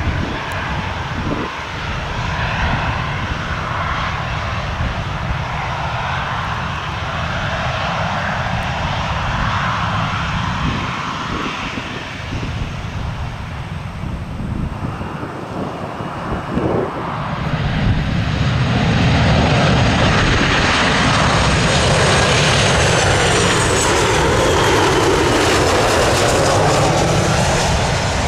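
Jet engines of Southwest Boeing 737 airliners running close by. The sound grows louder about two-thirds of the way in as a 737 comes over on approach to land, with a faint high whine that slowly falls in pitch.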